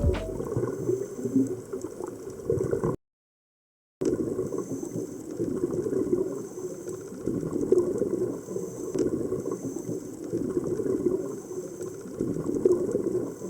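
Water bubbling and gurgling continuously, broken by a sudden second of silence about three seconds in.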